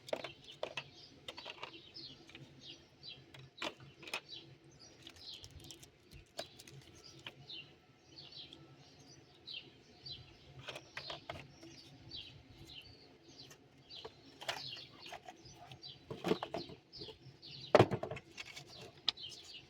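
Small birds chirping over and over in the background: short, high, falling notes about one or two a second. Scattered clicks and knocks of parts being handled come between them, the loudest a knock near the end.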